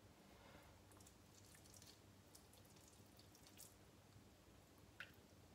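Near silence with faint, soft wet dabs and small clicks of a silicone pastry brush spreading marinade over a whole fish, with one sharper tick near the end.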